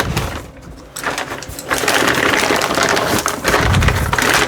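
Rustling and crinkling of packaging while rummaging through a cardboard box of old tools, with a couple of low thuds near the end.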